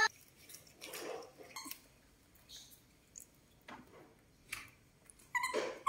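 Baby macaques making short squeaks, the loudest one near the end, amid soft rustles of the corn husks they are handling.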